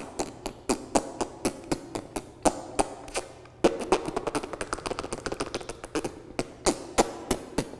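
Beatbox lip roll: sucked-in, sideways-twisted lips flapping in a rapid, uneven train of wet clicks, with the tongue added for a higher edge. He is trying it on his weaker side and says it doesn't yet sound much like the real thing. The clicks break off briefly about three seconds in and thin out near the end.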